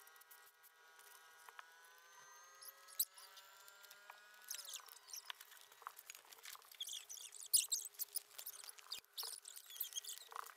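Paper rustling and crinkling as the small card parts of a paper nano model kit are folded and handled, with a couple of sharp taps and a busier stretch of crinkling from about halfway on. A faint hum of several steady tones, slowly rising in pitch, sits underneath until about four seconds in.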